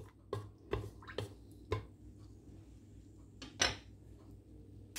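Wooden spatula knocking against the side of a stainless steel pressure cooker while sliced garlic is stirred in oil: several light knocks in the first two seconds, then one louder knock about three and a half seconds in as the spatula is set down.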